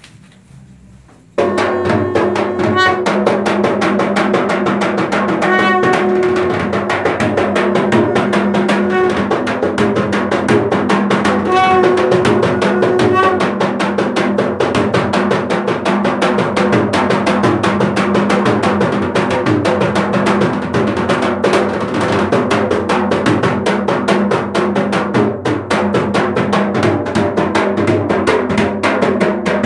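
Traditional Sri Lankan ritual drum beaten in a fast, continuous rhythm, starting suddenly about a second and a half in. A few short pitched notes sound over the drumming in the first half.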